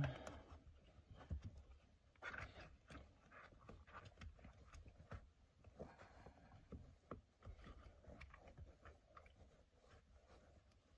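Faint rustling and small clicks of hands working seat belt webbing and buckles through the fabric slots of a car's rear seat cushion, with a slightly louder patch of rustling a little over two seconds in.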